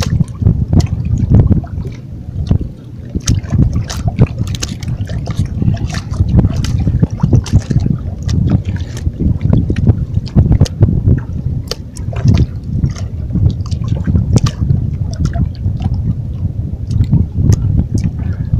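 Wind buffeting the microphone in a loud, uneven low rumble, with sea water washing against rocks and scattered short sharp clicks.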